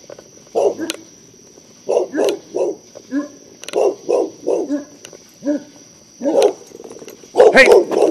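A loose dog barking aggressively in short, repeated barks, sometimes two or three in quick succession, getting louder near the end.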